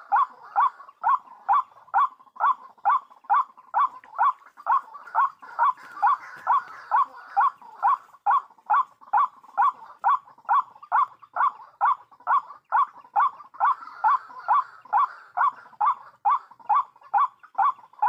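White-breasted waterhen calling: one short, bark-like note repeated very evenly about twice a second.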